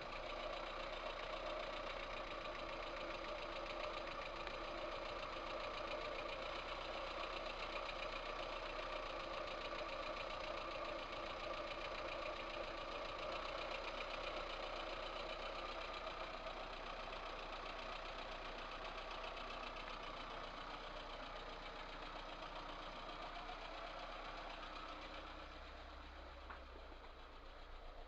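VAZ 2108 1300 cc four-cylinder engine idling steadily with a knock from the cylinder head. The owner traces the knock to two valves that are loose in worn valve guides.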